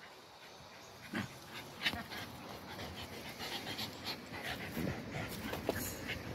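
Dogs at play close to the microphone: panting and short, irregular sharp sounds, starting about a second in and continuing to the end.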